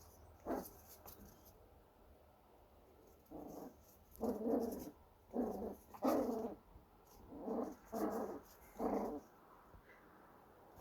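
A dog barking: about seven short, gruff barks in quick groups over several seconds, after a single short sharp sound about half a second in.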